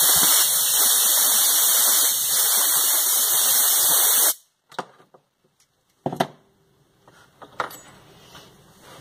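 Compressed air blasting from a blow gun onto a hot, freshly ground steel countersink tip to cool it: a loud, steady hiss that cuts off suddenly about four seconds in. A few sharp knocks follow as metal tools are set down on the bench.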